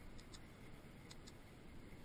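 Faint, steady low rumble of wind and tyre noise from a moving bicycle, with two pairs of light, high ticks, about a quarter second in and just after one second.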